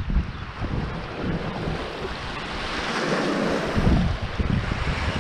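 Sea waves washing onto the shore, with a swell of surf about three seconds in, under wind buffeting the microphone.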